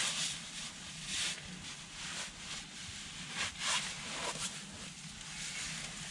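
Faint, irregular rustling and scuffing sounds of camping gear being handled and someone moving about while packing up camp.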